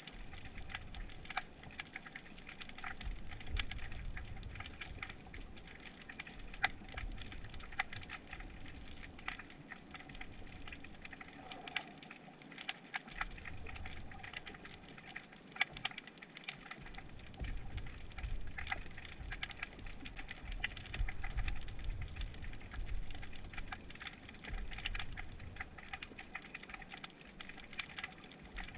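Underwater crackle of snapping shrimp: a dense, irregular patter of sharp clicks, over a low rumble of water moving against the submerged camera that fades out and returns a few times.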